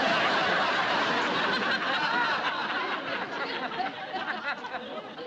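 Studio audience laughing, many voices together, loudest at the start and gradually dying down.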